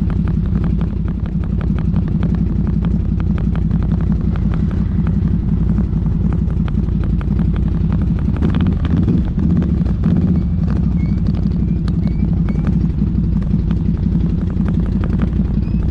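ATV engine running steadily under way, a constant low drone with many short clicks and rattles laid over it.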